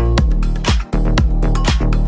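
Deep house music: an electronic track with a steady kick-drum beat about twice a second over sustained bass and held chords, with a brief drop just before the middle.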